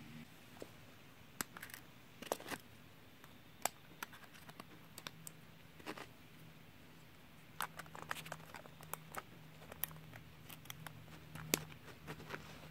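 Faint, scattered clicks and taps of hands handling a Canon PowerShot G9 X compact camera, working the battery and memory-card door on its underside.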